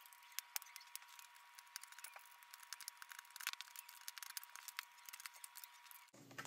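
Faint, quick small clicks and ticks of hands handling the plastic laptop screen assembly and its screws, over a faint steady high whine.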